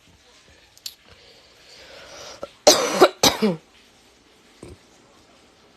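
A person coughing twice in quick succession, about three seconds in.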